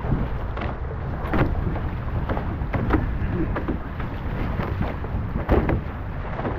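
Sailing catamaran moving through the water: wind rumbling on the microphone, with irregular splashes of water against the hull, the strongest about a second and a half in and again near the end.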